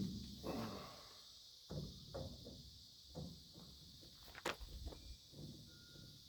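Soft, irregular metal knocks and scrapes from a thread die being worked by hand onto rusty threads to clean them up, with one sharp click about four and a half seconds in.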